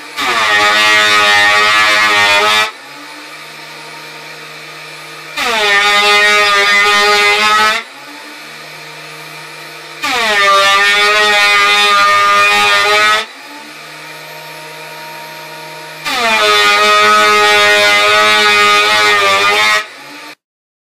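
Benchtop thickness planer running, with a board fed through four times. Each pass is a loud, high-pitched cutting whine lasting a few seconds, its pitch dipping as the board enters. Between passes the motor's lower steady hum runs on. The sound cuts off suddenly near the end.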